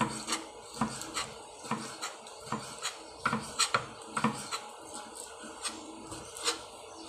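Kitchen knife chopping boiled chicken liver and gizzard on a cutting board: uneven knocks of the blade on the board, about two a second, with a light scrape between strokes. The chopping stops near the end.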